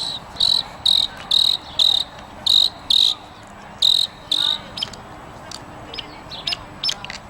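An insect calls in a run of about nine evenly spaced, high buzzy pulses, roughly two a second, which stop about four and a half seconds in. Shorter, scattered high chirps follow.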